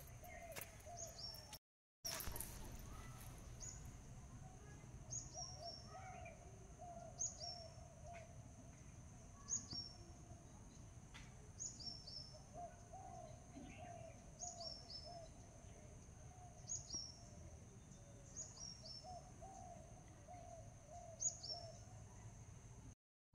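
Faint bird calls: a short high falling chirp repeated about every one and a half seconds, over a lower wavering call. The sound drops out completely for a moment about two seconds in.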